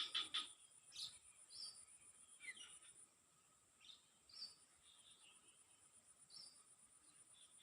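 Faint outdoor ambience: an insect's steady, finely pulsing high trill runs throughout, fading somewhat about three seconds in. Short bird chirps repeat about once a second, with a quick cluster of louder chirps right at the start.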